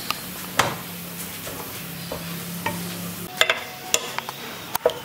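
Metal spatula scraping and tapping a non-stick frying pan as minced garlic sizzles in oil. The sharp scrapes and clicks come at irregular moments, more of them near the end.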